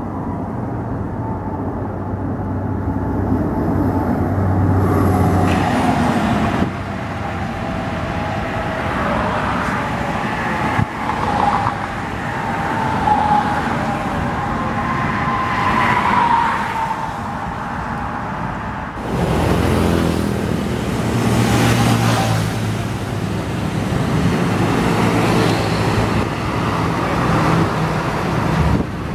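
Heavy vehicles, chiefly buses, passing on a highway, with engine drone and tyre noise rising and falling as they go by. The sound changes abruptly twice.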